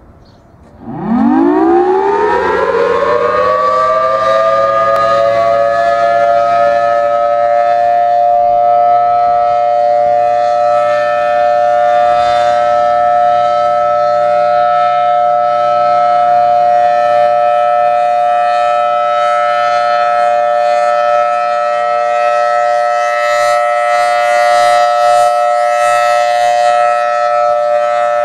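Federal Signal Thunderbolt 1000T outdoor warning siren starting up about a second in, its pitch rising as it winds up over a few seconds, then holding a loud steady tone while its horn rotates.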